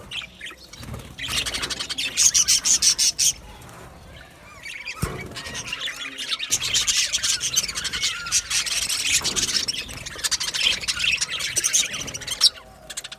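A group of budgerigars chirping and chattering in quick, high twitters: a short spell of about two seconds, a brief lull, then a longer spell of several seconds.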